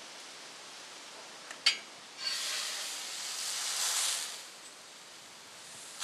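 A sharp knock about one and a half seconds in. Then water left in a hot, heavy cast-iron fry pan hisses as it flashes to steam, swelling for about two seconds and fading; it starts up again at the end as the pan is tilted.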